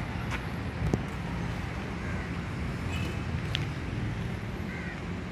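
Outdoor background: a steady low rumble, with one sharp click about a second in and a few faint short chirps.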